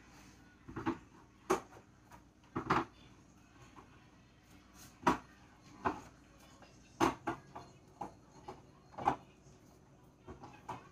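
Groceries being put away on pantry shelves: about ten short knocks and clunks at irregular intervals as items are set down and shifted on the shelves.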